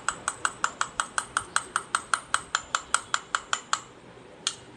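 Small toy spoon clinking against the inside of a miniature metal toy cooking pot in quick, even strokes, about five a second, each with a short metallic ring, as in play stirring; the strokes stop near the end, followed by one last tap.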